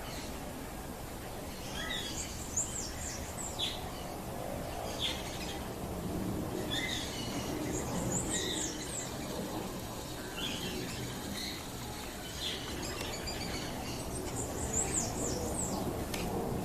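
Wild birds calling: scattered short, high chirps and, three times, a quick cluster of downward-sweeping high notes, over a steady low background hiss.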